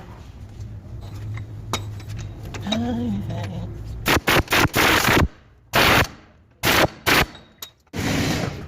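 Pneumatic impact wrench, a low steady hum at first, then firing in a run of short rattling bursts from about four seconds in.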